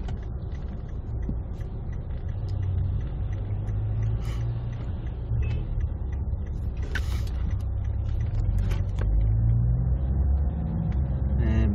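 Steady low rumble of a car's engine and road noise heard from inside the cabin in slow traffic, growing a little louder near the end.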